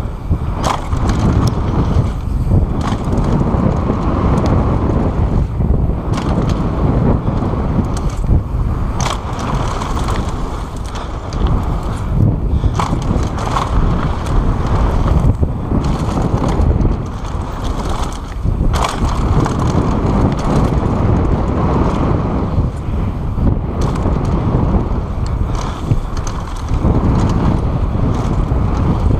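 Mountain bike riding fast down a dirt trail, heard through an action camera's microphone: wind buffeting the mic over tyres rolling on dirt and gravel, with frequent sharp rattles and knocks as the bike hits bumps.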